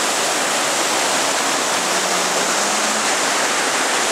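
Whitewater rapids of Whatcom Creek rushing steadily just below the footbridge.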